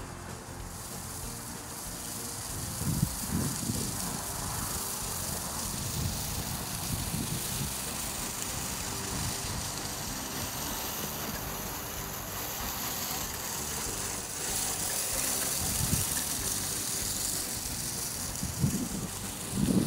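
Andersons LCO-1000 walk-behind broadcast spreader pushed across a lawn, its wheels, gears and spinning impeller rattling steadily as it flings out granules. A few brief low rumbles stand out, about three seconds in and near the end.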